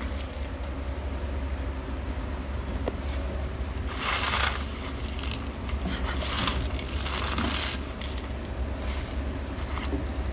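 Bingo potato chips being crushed by hand, crackling in irregular bursts, over a steady low hum.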